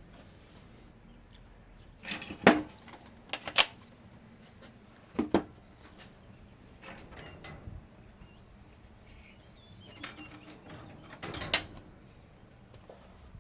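Scattered sharp knocks and clinks of tools and small parts being handled, some with a brief ring. A loud cluster comes about two to four seconds in, a single knock a little after five seconds, and another cluster around ten to eleven seconds.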